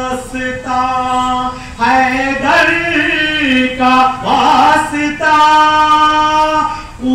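Devotional singing: a voice holding long, steady notes of a second or two each, with short breaks between them and the pitch wavering in places.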